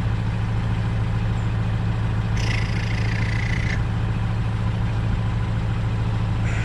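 A steady low mechanical drone, like an engine idling, with no change in pitch or level. About two and a half seconds in, a short hiss lasts just over a second.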